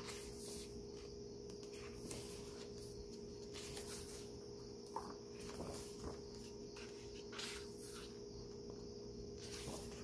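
Pages of a hardcover photo book being turned by hand: several soft paper swishes, over a faint steady hum.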